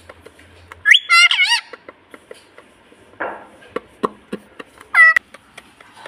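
Indian ringneck parakeets calling: a loud wavering squawk about a second in, a short harsh rasp around three seconds, and a rising call near the end. Small clicks run between them as a beak works a beaded toy.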